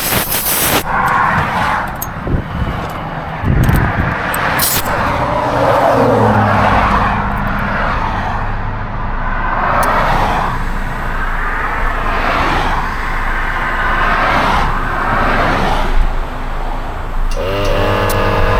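Motor traffic: vehicles passing one after another, in repeated swells every second or two, with a steady low engine-like hum underneath from about a third of the way in.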